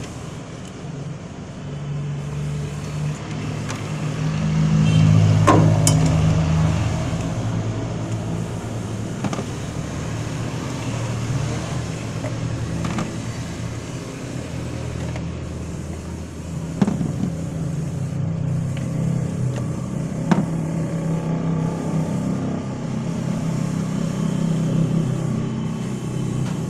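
Honda City four-cylinder engine running at idle with a steady low hum, swelling for a couple of seconds about five seconds in. A few sharp clicks come from handling parts on the engine.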